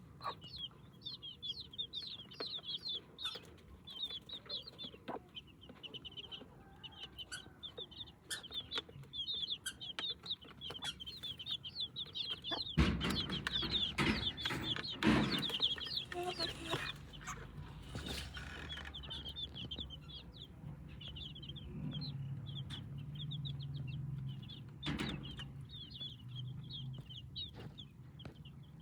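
Chicks peeping continuously in rapid, high-pitched cheeps, with a hen clucking low. About thirteen seconds in come several seconds of loud scuffling and knocking.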